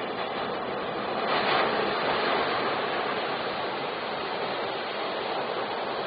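Ocean surf breaking and washing onto a beach, a continuous rush of foaming water that swells about a second and a half in as a wave crashes.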